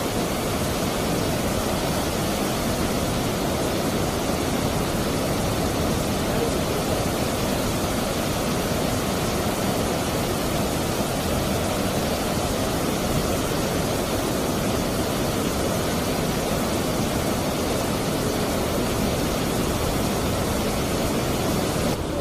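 River water rushing over rocks at a weir, a steady, unbroken rush of white water.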